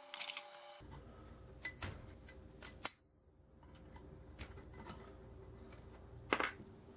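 Scattered light clicks and taps of hands working at the pad pins of a brake caliper on a workbench, with a louder click about six seconds in.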